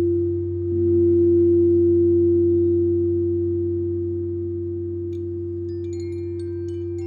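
Singing bowls ringing in long, steady tones, with a second, lower tone swelling in about a second in. Light, high chime tinkles begin near the end.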